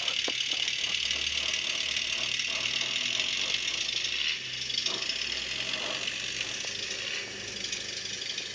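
Model locomotive running: the ESU LokSound micro decoder in an HOm BEMO RhB Tm 2/2 track tractor plays diesel engine sound through its tiny speaker, over the rattle and whir of the model's motor and wheels on the track. The sound gets quieter in two steps, about four seconds in and again about seven seconds in.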